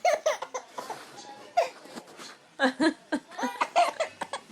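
A baby laughing in short, high-pitched bursts of giggles, with a quick run of laughs about two-thirds of the way through.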